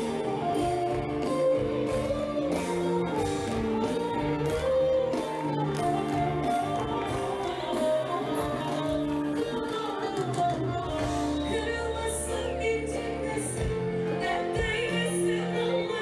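Live band music from an open-air concert stage, with a steady beat and singing.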